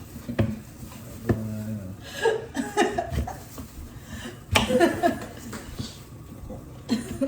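Laughter and a few indistinct vocal sounds, with a few sharp knocks.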